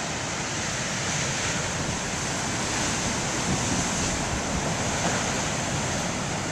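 Big ocean waves breaking, a steady, unbroken rush of surf.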